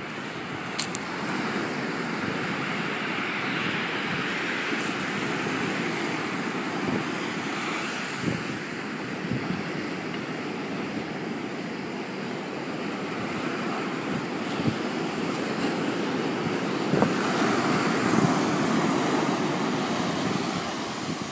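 Ocean surf washing onto a sandy beach, a steady rush that swells and eases and grows louder toward the end, with wind buffeting the microphone.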